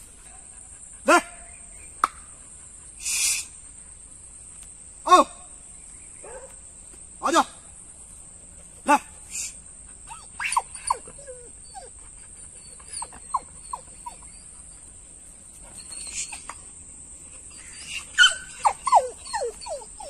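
Dogs barking: single short barks every couple of seconds, then a quick cluster of shorter barks and yelps near the end, over a steady high-pitched drone.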